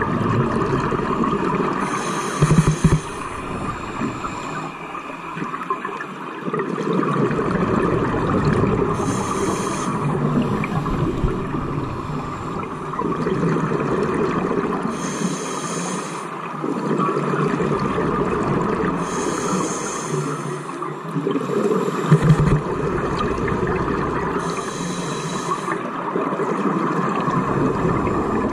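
Scuba diver breathing through a regulator, heard underwater: a hissing burst of exhaled bubbles about every five seconds, five in all, over a steady underwater rush.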